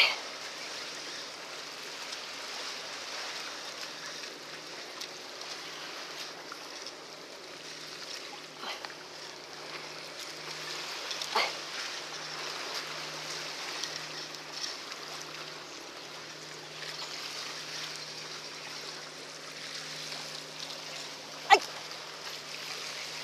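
Steady wash and lapping of sea water, under a faint low hum. A few brief knocks are heard, with one sharp click near the end.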